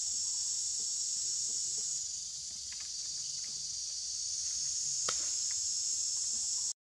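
Steady, shrill drone of a forest insect chorus, easing off slightly a couple of seconds in, with a faint click about five seconds in; it breaks off abruptly at the very end.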